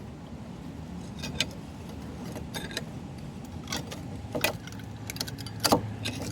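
A steel file prying and scraping at rusted front brake pads in their caliper bracket, working them loose: scattered short metallic clicks and scrapes over a low steady hum.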